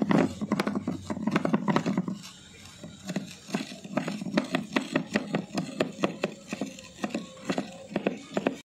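Cylindrical stone roller crushing seeds on a grooved stone grinding slab (shil-nora): repeated scraping and knocking strokes of stone on stone. It cuts off abruptly near the end.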